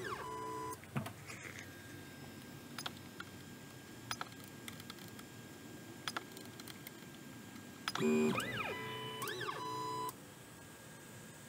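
Stepper motors of a homemade Marlin-controlled CNC machine moving its axes: a whine that rises and falls in pitch as they speed up and slow down. One move fades out less than a second in and two more come about eight seconds in. In between there are a few sharp clicks from the LCD controller's rotary knob being turned and pressed.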